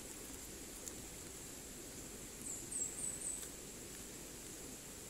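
A steady faint high insect hum, broken about two and a half seconds in by four quick, high squeaky chirps from a small animal.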